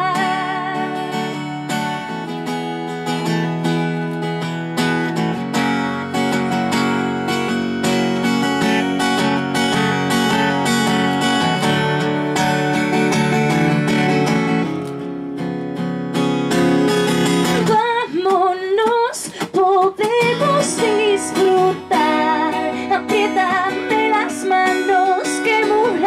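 Acoustic guitar strumming chords in a live pop song's instrumental break. About eighteen seconds in, a woman's singing voice comes in over the guitar.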